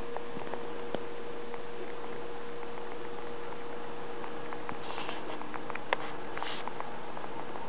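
Small pet sneezing softly: two brief puffs about five and six and a half seconds in, with a sharp click between them and scattered faint clicks, over a steady hiss and faint hum.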